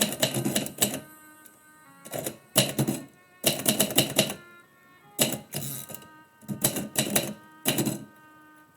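Typewriter keys striking in quick bursts of several keystrokes, with short pauses between the bursts, over quiet background music.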